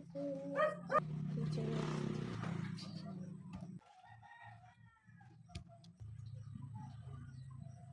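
A rooster crows once, a long call of about three seconds, followed by a few softer chicken calls.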